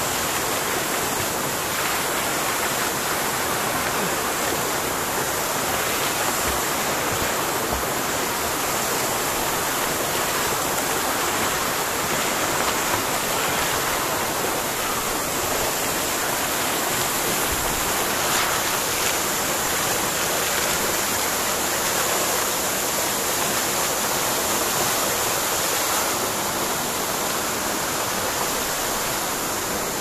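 Waterfall spilling over a concrete ledge into a bathing pool: a steady, unbroken rush of falling water.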